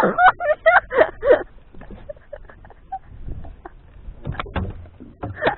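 A man's excited wordless vocal sounds, loud and rising and falling in pitch, for about the first second and a half. Then scattered light knocks and handling noise in a small boat.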